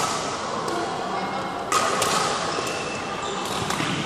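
Badminton rackets striking a shuttlecock in a rally: several sharp hits, the loudest a little under two seconds in, each ringing on in the echo of a large hall. Players' voices can be heard in the background.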